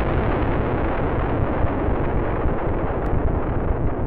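Cinematic explosion sound effect in its long rumbling tail: a dense low rumble that slowly fades and grows duller as its hiss dies away.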